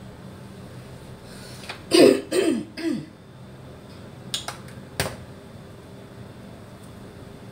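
A woman clears her throat in three short bursts, each falling in pitch, followed a couple of seconds later by a few small sharp plastic clicks as the cap of a foam cleanser tube is opened.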